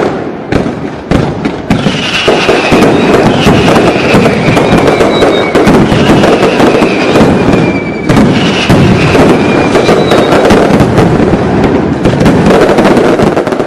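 Fireworks display: dense, rapid crackling and banging without a break, with high whistles that fall slowly in pitch from about two seconds in.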